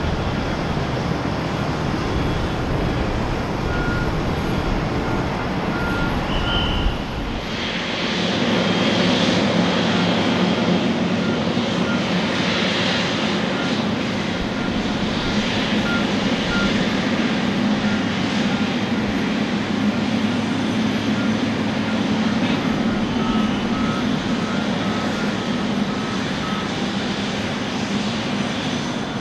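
Steady jet aircraft engine noise on an airport apron, with a continuous whine and hiss. About seven seconds in, the deep rumble drops away and a steadier hum takes over.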